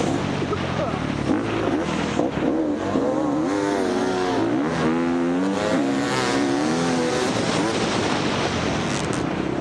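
Four-stroke Husqvarna FX 350 dirt bike engine revving up and down again and again under changing throttle, its pitch rising and falling every second or so.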